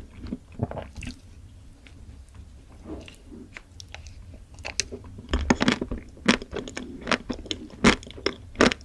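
Close-miked biting and chewing of a chocolate-coated ice cream bar. The chocolate shell cracks in a string of crisp crunches, thickest in the second half, with soft wet chewing between them.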